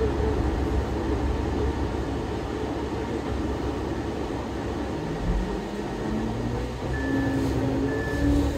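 GO Transit bus idling with a steady low rumble, then pulling away from a stop about halfway through, its engine note rising in pitch as it accelerates. A short high beep repeats about once a second near the end.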